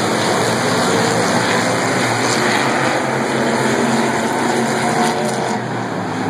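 Hobby stock race car engines running on the track, several cars at once, with a steady dense engine noise and pitch shifting as they pass.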